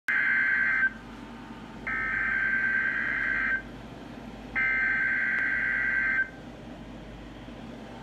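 Several NOAA weather radios sounding the SAME digital header of a Required Weekly Test: three bursts of data tones, each about a second and a half long, with about a second's pause between them.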